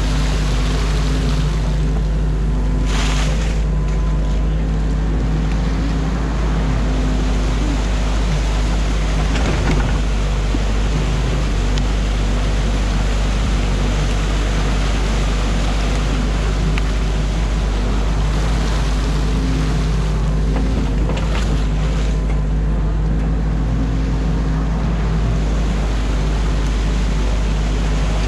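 Excavator's diesel engine running steadily under a constant rushing noise, with two brief knocks, one a few seconds in and one about three-quarters of the way through.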